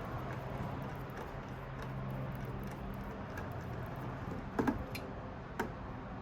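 Small clicks and taps from hand tools and loose parts being handled during an iMac teardown, with a short cluster of sharp clicks partway through and one more a second later, over a low steady hum.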